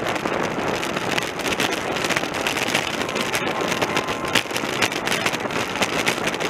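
Wind rushing over a bicycle-mounted camera's microphone while riding at race speed, with frequent small knocks and rattles from the bike on the road surface.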